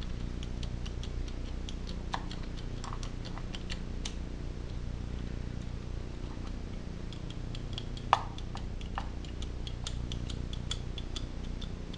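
Quarter-inch drive socket ratchet clicking in runs as it tightens the condenser cover screws, about four clicks a second, with one louder metal knock about eight seconds in.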